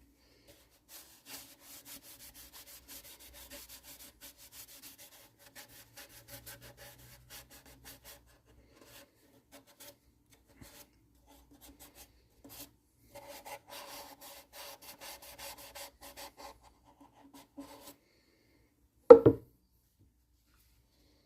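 A paper towel pad rubbing a homemade finish onto a wooden ukulele body in quick back-and-forth strokes, in two spells with a pause between. Near the end comes a single loud knock.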